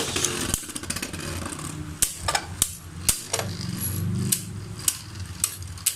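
Two Hasbro Beyblade spinning tops whirring in a plastic stadium and clashing, with a series of sharp clicks at uneven intervals as they hit each other.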